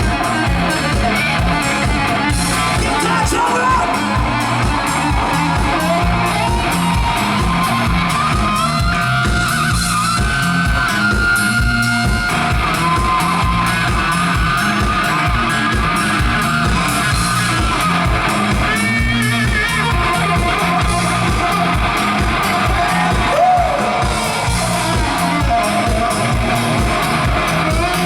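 Rock band playing live: guitar over bass and drums with a steady beat.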